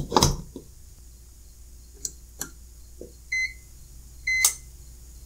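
A plug pushed into a power strip with plastic clicks and cord rubbing, then a few sharp clicks and two short high beeps about a second apart from a CyberPower 1285AVR UPS as it switches on.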